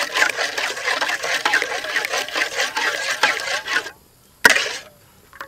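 Thick chili and tomato dipping sauce bubbling in a wok as a metal ladle stirs and lifts it. The sound cuts off suddenly about four seconds in, followed by a single sharp knock.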